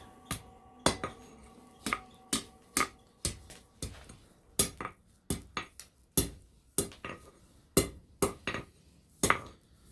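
Hand hammer striking hot steel on the edge of an anvil, knocking a tapered point down to form an eye. The blows are sharp and metallic, about two a second at an uneven pace, with a faint ringing tone between them.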